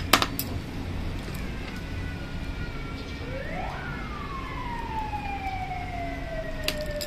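A siren sounding one wail: it rises quickly about three seconds in, then slowly winds down in pitch. A few light clicks come right at the start.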